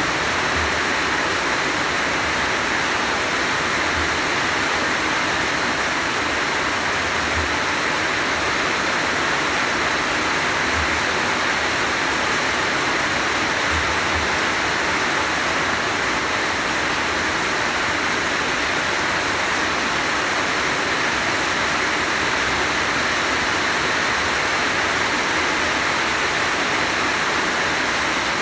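Heavy rain falling in a steady downpour, an even hiss that does not let up.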